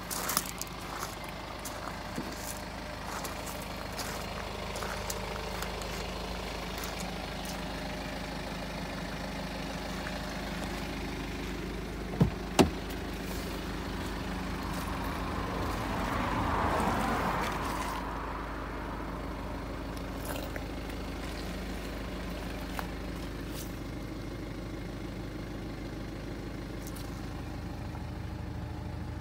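BMW 320d Touring's 2.0-litre four-cylinder turbodiesel idling steadily. About twelve seconds in there are two sharp knocks as the driver's door is opened, and a brief swell of noise follows a few seconds later.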